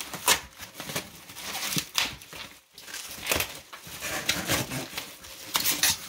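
Cardboard box being opened by hand: flaps scraping and plastic packing crinkling in irregular bursts.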